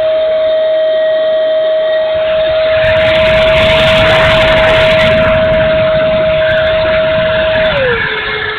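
Dynam Meteor RC sport jet's electric ducted fan whining at a steady high pitch in flight, then throttled back near the end so that the whine drops lower. Gusts of wind rumble on the microphone, strongest around the middle.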